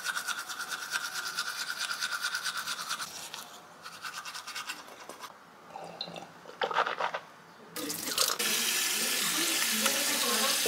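Teeth being brushed with a toothbrush, in fast, even scrubbing strokes that fade after about five seconds. A few short rinsing sounds follow, then a tap starts running about eight seconds in with water splashing in the sink.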